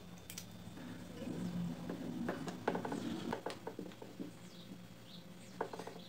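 Hands working on a desk fan's motor wiring: rustling of wire and small clicks and rattles of plastic parts and a hand tool, busiest in the middle, with a quick run of clicks near the end. A steady low hum runs underneath.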